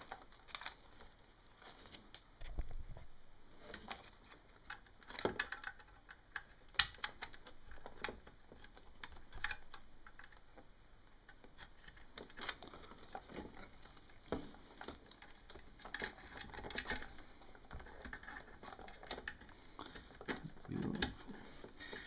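Irregular small clicks, taps and rustles of hands working drive cables onto a Samsung 850 EVO SSD in its adapter bracket, with a few louder clicks here and there.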